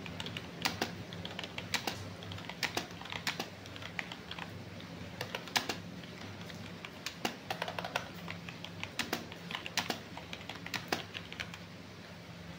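Typing on a full-size computer keyboard: irregular runs of key clicks with short pauses between them.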